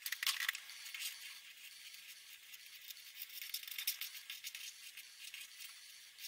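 Felt-tip marker scratching across paper in short, quick strokes as letters are outlined, with a few sharper clicks near the start.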